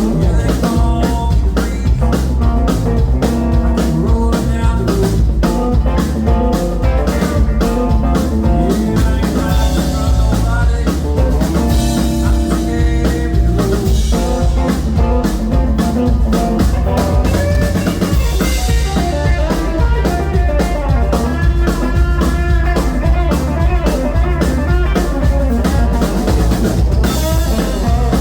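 A live band playing: drum kit keeping a steady beat under bass and electric guitar.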